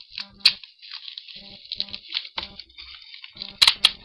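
Plastic bubble-wrap pouch crinkling and rustling as it is handled and pulled open by hand, with a sharp snap about half a second in and two more close together near the end.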